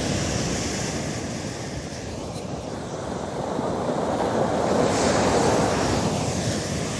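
Storm surf breaking on a stony beach: a continuous wash of waves that eases briefly, then swells as a big wave breaks about five seconds in.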